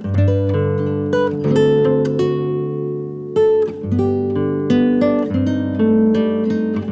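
Music on a plucked string instrument: notes and chords struck about every half second and left to ring and fade.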